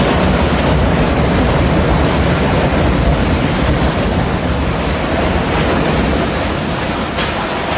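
Storm wind buffeting the microphone over rough sea, a loud steady rushing noise with no pauses.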